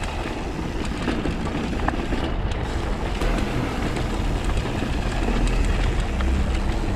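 Mountain bike rolling fast down a gravel trail: steady tyre noise on loose stones and wind on the microphone, with scattered light clicks and rattles from the bike.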